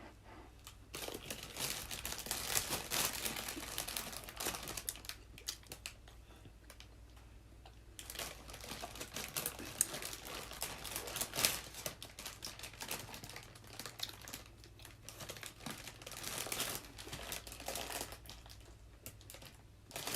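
Plastic food packaging crinkling and rustling in several spells, with quieter gaps between them.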